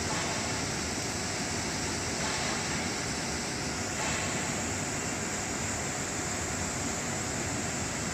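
Commercial vegetable washing machine running, its tank of water churned by air bubbles: a steady, unbroken rushing noise of machinery and agitated water.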